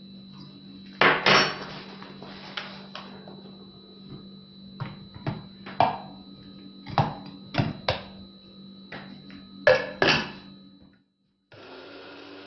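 A metal spoon clinks and knocks against a stainless-steel coffee-grinder cup as spoonfuls of flax seed are tipped in from a paper bag, with a dozen or so sharp knocks. The loudest knocks come about ten seconds in as the cup and lid are fitted onto the grinder. After a moment's silence near the end, a steady even whir starts: the electric coffee grinder grinding the seeds.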